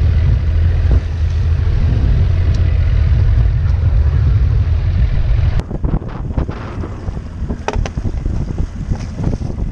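Heavy wind buffeting the microphone on a small fishing boat in rough seas, a loud low rumble. About five and a half seconds in it cuts to quieter wind with water splashing beside the hull and a few short knocks.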